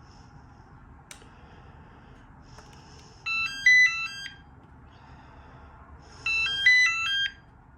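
Panasonic KX-TG210 cordless handset ringing after being paged by the base's find-handset button: two loud bursts of a quick stepping electronic ring tone, each about a second long and about three seconds apart. A small click about a second in comes before the first ring.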